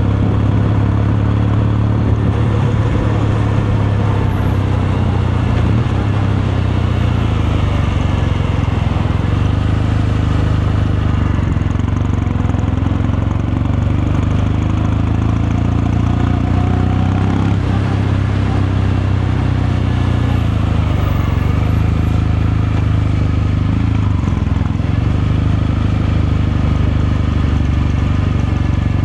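Kawasaki Meguro K3's air-cooled 773 cc parallel-twin engine and exhaust running steadily under way, the pitch only drifting slightly up and down with no hard revving or gear changes.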